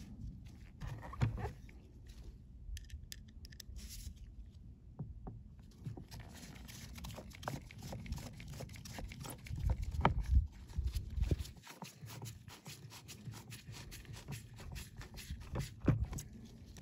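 Hand screwdriver turning brass screws into the plastic housing of an RV toilet: a run of small clicks and creaks from the screw and plastic, with a few louder knocks about a second in, around ten seconds in and near the end as the tool and parts are handled.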